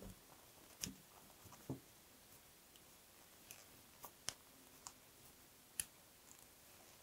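Faint, scattered clicks of a crochet hook working thick 10 mm yarn in single crochet stitches, about eight light ticks spread unevenly over several seconds.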